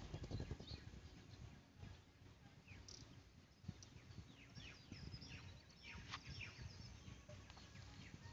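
Faint birdsong: several small birds chirping in short, quick, falling notes, in clusters, over a low rumble.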